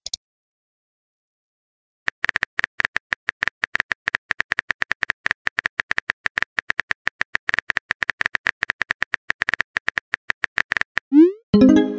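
Rapid clicks of a messaging app's keyboard sound effect as a message is typed out letter by letter. Near the end, a rising whoosh and a short pitched tone as the message is sent.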